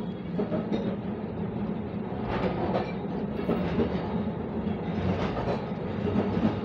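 Kolkata tram car running along its street track: a steady low rumble with irregular rattling knocks from the wheels and body.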